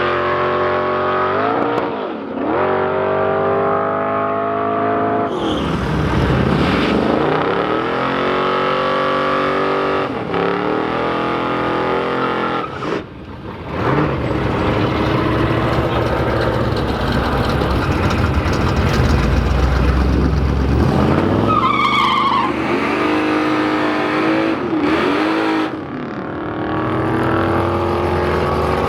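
Drag-racing cars at full throttle, the engine note climbing again and again as they rev and pull through the gears, with tyres squealing and spinning in burnouts.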